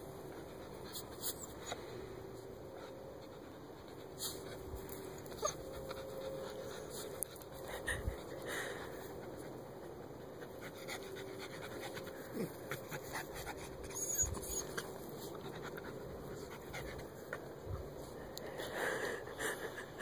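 Miniature schnauzer panting while digging into an animal hole, its paws scraping the dirt in quick, scattered scratches.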